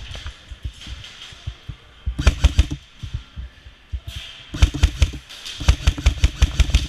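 Airsoft gun firing three short bursts of rapid shots, about ten a second, the first about two seconds in and the last two close together near the end.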